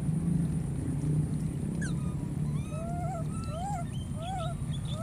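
Baby monkey whimpering: three or four short rising-and-falling cries in the second half, over a steady low rumble.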